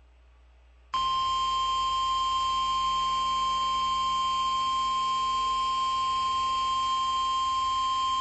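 Weather-radio emergency alert tone: a single steady, high-pitched tone of about 1050 Hz that starts abruptly about a second in, after a brief silence. It is the warning alarm that precedes a National Weather Service tornado warning broadcast.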